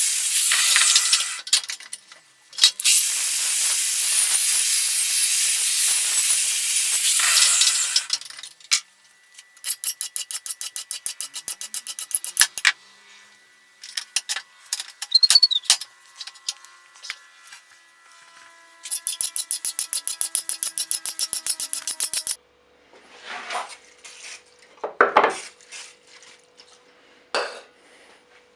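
Loud, steady hissing that stops briefly about two seconds in and then cuts off near the eight-second mark. After it come runs of fast, even clicking and small metal clinks that leave ringing tones.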